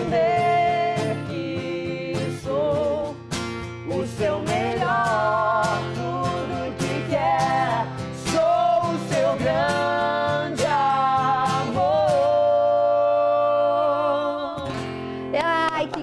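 Woman singing the close of a gospel ballad over guitar accompaniment: drawn-out, wordless vocal lines with vibrato, ending on a long held note that stops about a second and a half before the end.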